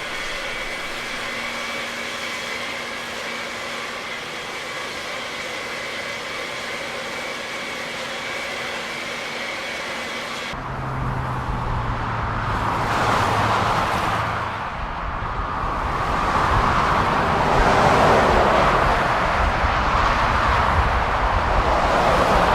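Steady vehicle running noise with several even tones. About ten seconds in it cuts suddenly to a louder, rougher vehicle noise that builds toward the end.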